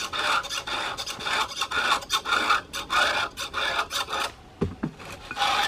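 Rapid back-and-forth rasping strokes of a hand tool scraping, about three a second, with a short pause and a low knock near the end. No chainsaw engine is running.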